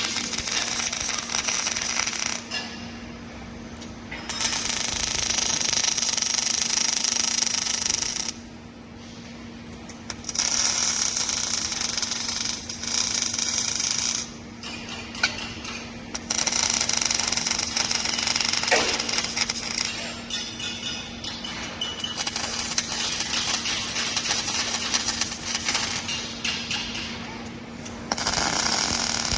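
Robotic arc welding: the welding arc crackling and hissing in runs of about four seconds, each followed by a pause of about two seconds, six runs in all, over a steady low hum.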